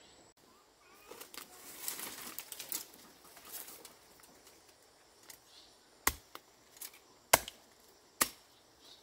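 Rustling of leaves and undergrowth for a few seconds, then three sharp chopping strikes about a second apart, the middle one loudest, as a blade cuts bamboo shoots.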